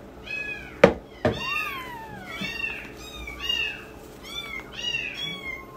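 Newborn kittens mewing, about two high, arching cries a second, some of them overlapping. Two sharp clicks come about a second in.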